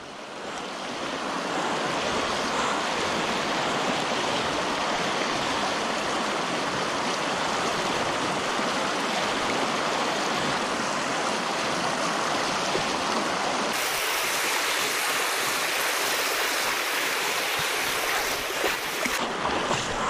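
Shallow river water rushing steadily over rocks, heard close up while wading through it.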